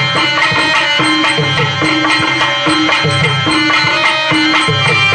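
Live drama accompaniment music: a hand drum plays a steady rhythm under a sustained melody line.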